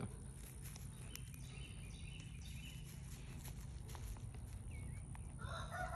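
Faint scattered ticks and rustles from baby rabbits nibbling collard leaves, over a quiet outdoor background. A rooster starts crowing near the end.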